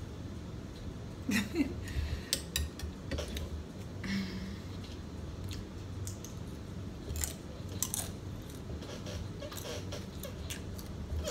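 A person chewing food close to the microphone, with scattered sharp wet mouth clicks, thickest in the first few seconds and again around seven to eight seconds in, over a steady low hum.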